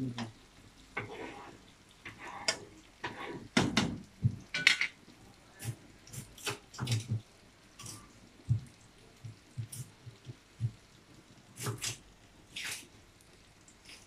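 Metal spatula clinking and scraping against a frying pan as a stir-fry of fried onion and chicken is stirred, then kitchen-utensil clatter as the tools are set down. Irregular sharp knocks and taps, sometimes several a second, sometimes with a dull thud.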